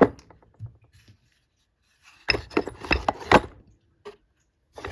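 Sharpening stones knocking and clinking as they are set into a silverware organizer: a few light clicks, then a quick run of sharp knocks about two to three and a half seconds in.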